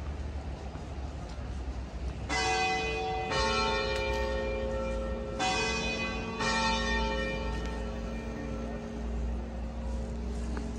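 Bells ringing: four strikes in two pairs, the first pair about two seconds in and the second about five seconds in. Each strike rings on and slowly dies away, and a low hum lingers after the last one.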